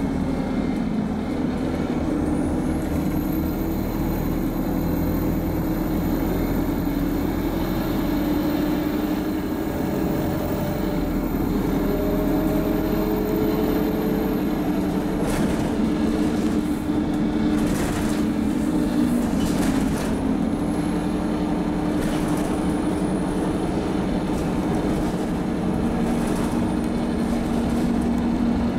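Inside an Alexander Dennis Enviro200 MMC single-deck bus with an Allison automatic gearbox, under way: a steady engine and driveline drone whose pitch slowly shifts. A high thin whine sounds over roughly the first half and again later, and a few knocks and rattles come in the middle.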